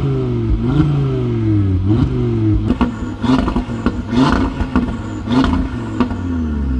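Car engine and exhaust under way, its pitch sagging and jumping back up several times in the first few seconds, then holding steadier with a rapid crackle over it.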